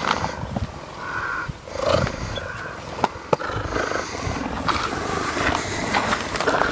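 A cheetah purring continuously at close range, with two sharp knocks about three seconds in.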